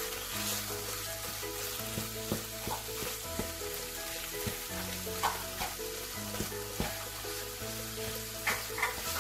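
Raw ground turkey sizzling in a hot pan of onion-tomato masala as a wooden spatula breaks the block apart and stirs it, with short scrapes and knocks of the spatula against the pan every second or so.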